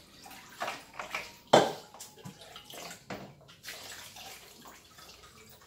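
Water sloshing and splashing in a plastic bucket as a plastic bottle is held under the surface to fill it, in irregular bursts with one sharper, louder splash about one and a half seconds in.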